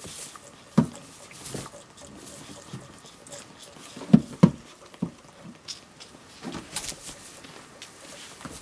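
Goat kids giving a few short, low calls, two of them in quick succession about four seconds in, with rustling in the straw bedding.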